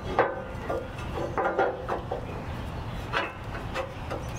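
Steel off-road bumper parts knocking and scraping together as the hitch-receiver center section is worked into place against a bumper wing. There are a handful of short clanks with brief ringing, spread through the few seconds.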